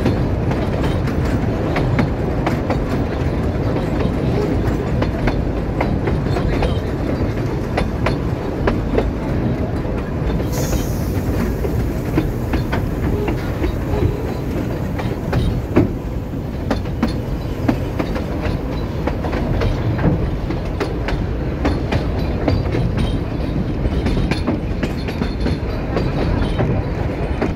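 Narrow-gauge railway carriage running along the track: a steady rumble with the clatter and sharp clicks of the wheels over the rail joints.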